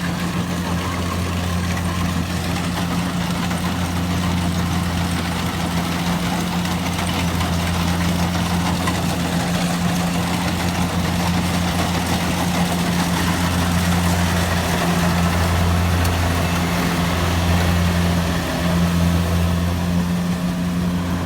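An engine running steadily at an even speed, a loud deep hum that grows a little louder after about fifteen seconds.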